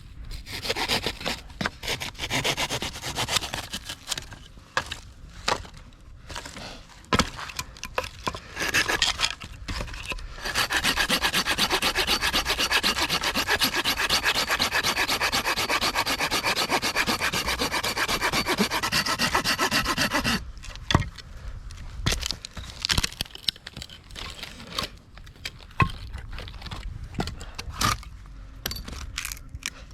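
Firewood being cut with a hand saw. About a third of the way in, the saw settles into fast, even back-and-forth strokes for roughly ten seconds, with scraping and knocking of the wood before and after.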